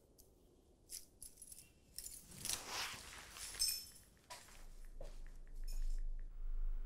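Small metal objects jingling and clinking with some rustling, the busiest stretch between about two and four seconds in. A low steady hum comes in around the middle.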